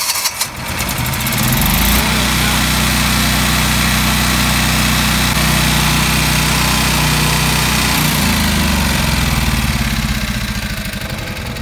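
Generac Guardian 8 kW standby generator's air-cooled engine running just after start-up, coming up to speed and settling into a steady run about two seconds in, warming up to get the oil hot. It grows fainter near the end.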